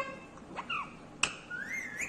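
Indian ringneck parakeet making short whistled calls: a brief falling note about half a second in, a sharp click, then a rising-and-falling whistle near the end.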